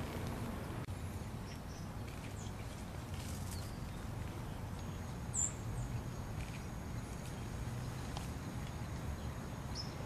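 Outdoor background of a steady low rumble, with a few faint, brief high chirps of small birds; one sharper chirp comes about halfway through.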